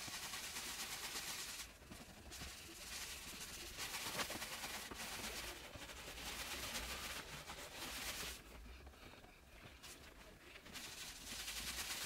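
Cloth mitt rubbing against a wooden wall panel as it is wiped down: faint, even rubbing strokes, broken by a short pause about two seconds in and a longer one near the end.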